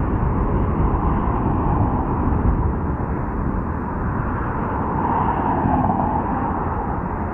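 Steady road traffic noise from cars on a multi-lane city road, swelling as a car passes about five to six seconds in.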